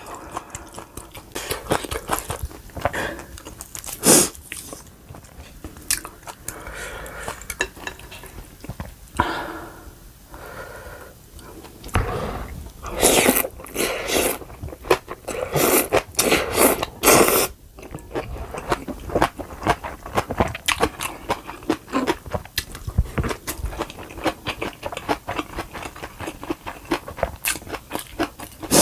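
Close-miked chewing and biting of food, with crisp crunches and mouth sounds. The crunches are loudest in a quick run of bites about halfway through.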